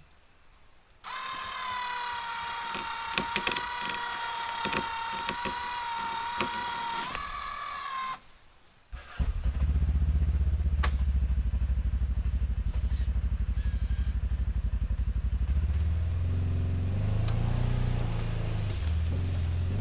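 Electric winch motor whining steadily under load for about seven seconds, with clicks and knocks over it; its pitch rises slightly just before it stops. A second later an off-road vehicle's engine starts and runs with a steady low rumble, louder than the winch.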